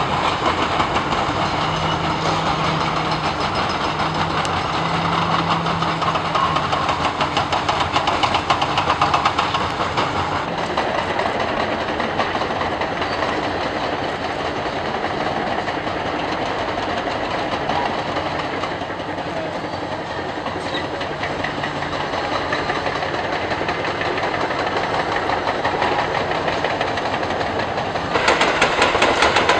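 A fleet of excavators demolishing a concrete bridge: a continuous rapid clattering and hammering of steel attachments breaking concrete over running diesel engines. The din changes and grows louder near the end.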